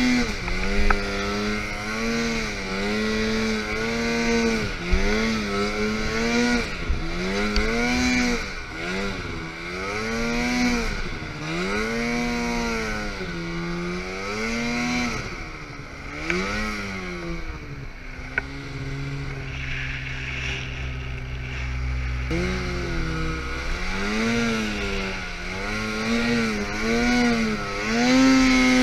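Snowmobile engine revving up and down over and over while riding through deep powder snow, the pitch rising and falling every second or two. About two-thirds of the way through it settles to a lower, steady note for a few seconds, then climbs and revs again.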